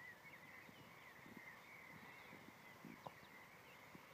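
Near silence: faint, high chirping of distant wild animals, with a few soft low taps.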